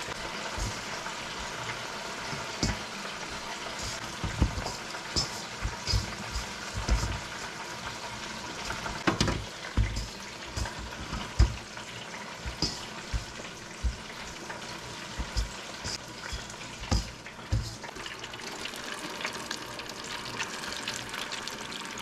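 Hot oil in a countertop electric deep fryer sizzling steadily as battered bluegill fry. Irregular soft thumps and knocks run through the middle, from fish being handled and pressed into cornmeal batter in a steel bowl.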